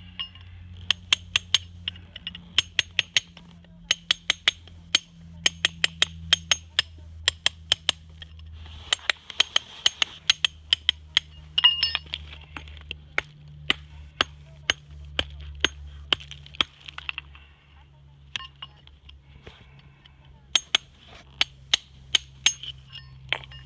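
Hammer striking a raw natural whetstone in quick runs of sharp, ringing clinks with short pauses between runs: the stone is being knocked and tap-tested by its ring so that it splits along its weakest layers.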